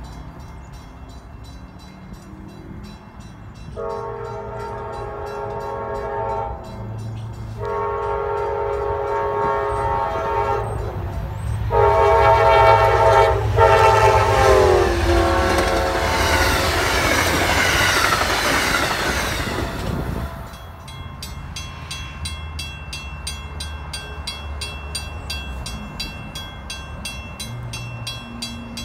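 Amtrak P42DC diesel locomotive's horn sounds three long blasts as the train approaches. The last blast drops in pitch as the locomotive passes, followed by the rush of the train going by. Then a grade-crossing warning bell rings with a steady repeating stroke.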